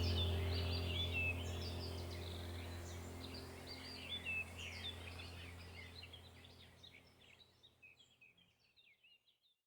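Many small birds chirping and twittering over a low steady hum, the whole sound fading out gradually to silence about eight seconds in.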